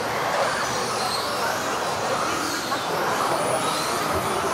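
Several modified-class electric RC off-road cars racing, their motors whining in pitches that rise and fall with the throttle and overlap one another.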